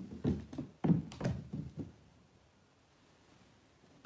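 Kitten's paws pounding on a wooden floor as it runs, a quick run of soft thumps over the first couple of seconds, then quiet room tone.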